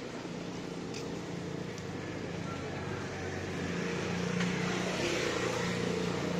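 Street traffic with a motorcycle engine running steadily and getting louder over the second half as it approaches.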